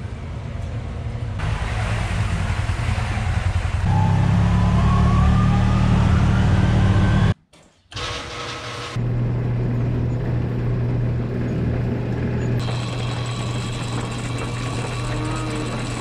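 Farm machinery and engines running steadily, with a rising whine partway through and a short gap of near silence at a cut.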